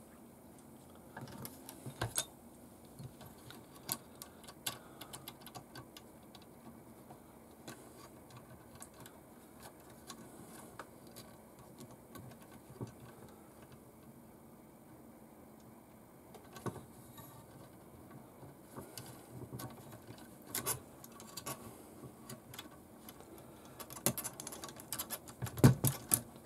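Light, irregular clicks and taps of small plastic and metal model-kit parts being handled as suspension link pins are pushed into an RC crawler's chassis and axle mounts, growing busier near the end.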